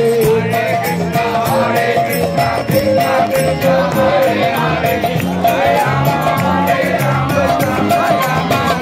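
Kirtan music played live, with an electric guitar, a repeating bass-note pattern and jingling hand percussion keeping a steady beat under group chanting.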